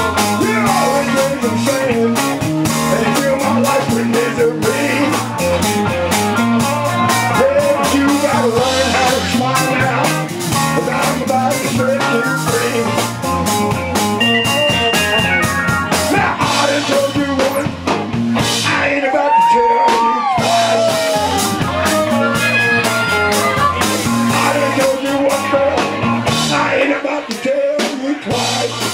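Live electric blues band playing: electric guitar, electric keyboard, bass and drum kit in a steady groove.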